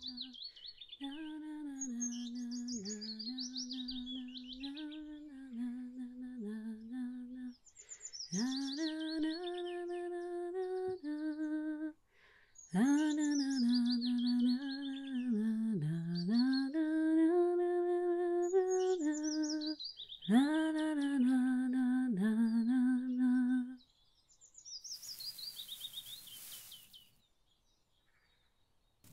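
A woman's voice humming a slow, wordless tune in phrases a few seconds long, over birds chirping in quick falling trills. The humming stops near the end, leaving a last bird trill and a brief hiss.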